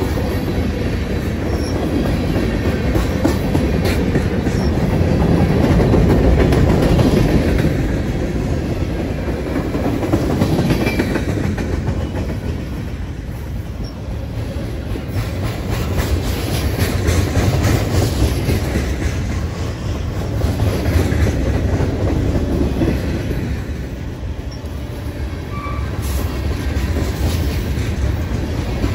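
Canadian National freight train cars rolling past: a steady rumble of steel wheels on rail that swells and eases as the cars go by. Many quick clicks run through it, and a couple of brief wheel squeals stand out, the first about a third of the way in and the second near the end.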